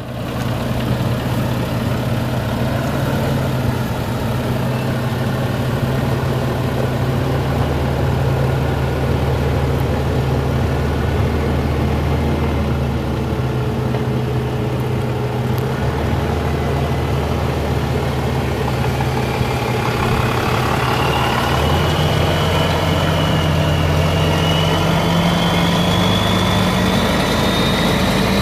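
Cummins six-cylinder diesel engine of a 1998 International 2554 dump truck idling steadily. From about 21 seconds in, the engine speed slowly rises, with a high whine climbing in pitch along with it.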